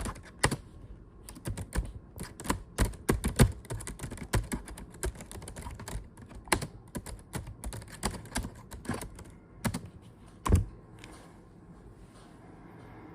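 Typing on a computer keyboard: a fast, uneven run of key clicks, with one louder click about ten and a half seconds in. After that the clicking stops, leaving only a faint hiss.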